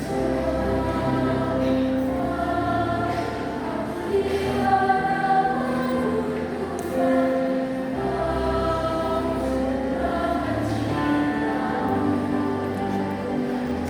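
Mixed choir singing in several parts, sustained chords moving every second or so over held low bass notes.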